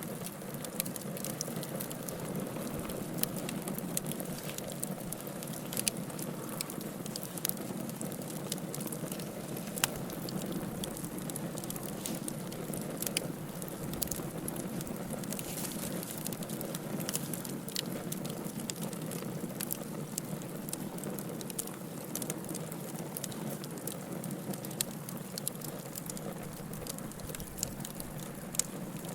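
Campfire burning: a steady low hiss with frequent sharp crackles and pops of the burning wood.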